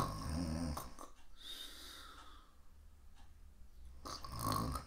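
A woman pretending to snore: a snore at the start and another about four seconds in, with a breathy exhale between.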